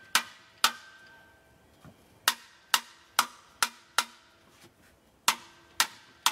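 A mallet strikes the metal alternator housing of a Kohler 14RESA generator about ten times in three quick bunches. Each blow is sharp and leaves a brief metallic ring. The blows are knocking the alternator loose from the engine, and it is coming off little by little.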